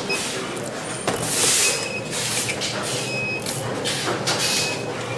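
Production-line noise on a power bank factory floor. A steady machine hum runs under bursts of hiss, with a few clicks and short high electronic beeps now and then.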